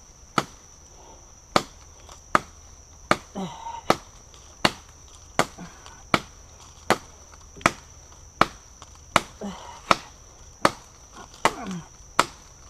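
Glock 78 field knife's steel blade chopping into a rotten fallen tree, with sharp, evenly paced strikes about every three-quarters of a second.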